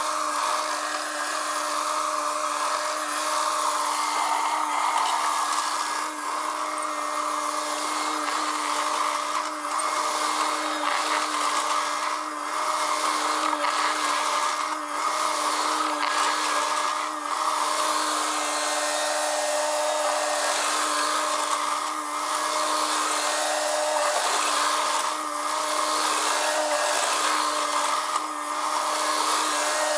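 Bobcat T630 skid steer running steadily under load: a continuous engine and hydraulic whine with a few brief dips in level, while gravel is spread and packed.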